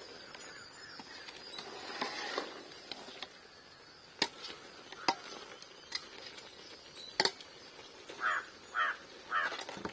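A flat ladle stirring thick curry in a metal pot, knocking sharply against the pot a few times. Near the end a crow caws three times.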